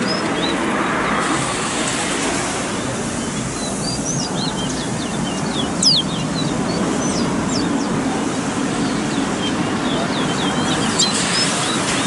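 Caged fire red birds singing in a song contest: bursts of short, quick high chirps and whistles, with one louder whistle about six seconds in and another cluster of notes near the end, over a steady background hiss.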